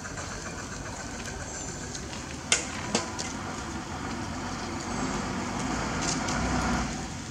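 A low motor-vehicle rumble swells over a couple of seconds and then drops away near the end, over steady background noise. Two sharp clicks come about two and a half and three seconds in.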